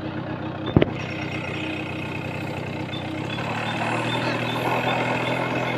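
A motor vehicle engine running steadily, with one sharp click about a second in.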